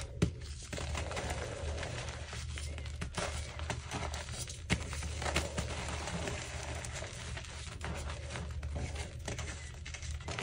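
Yellow-dyed gym chalk crunching and crumbling between fingers: a dense crackle of small snaps, with a sharp crack just after the start as a pressed chalk block breaks apart.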